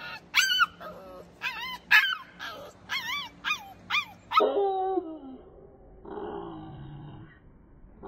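Pitbull puppy yipping, a run of short high-pitched yips about two a second, then breaking into a drawn-out howl that falls in pitch about four and a half seconds in, followed by a fainter howl.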